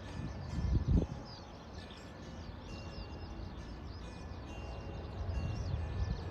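Small birds chirping again and again over a low outdoor rumble, with a brief low thump about a second in; the rumble grows louder near the end.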